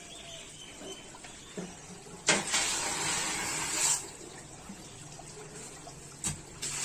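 Red-hot end of a steel crowbar plunged into a bucket of quench water: a sharp start, then a sizzling hiss of steam for about a second and a half that cuts off abruptly. A short metallic knock follows near the end.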